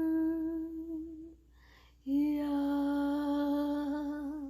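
A woman singing wordless, unaccompanied held notes. The first note fades out about a second in, then comes an audible breath. A second long, slightly wavering note follows on 'yeah', a little lower in pitch.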